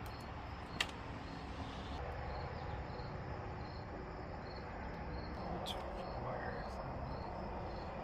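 Crickets chirping, a high chirp repeating about three times a second, with a couple of faint clicks.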